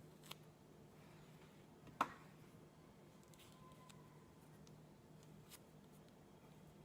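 Near silence with faint small ticks of a fig being peeled by hand, and one sharp click about two seconds in.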